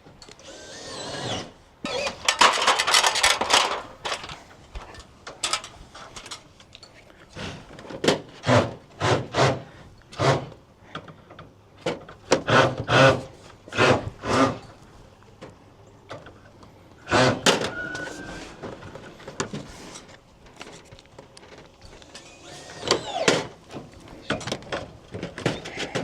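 Power drill driving gutter screws in a series of short bursts, mixed with knocks and clatter from the aluminium gutter being fastened in place.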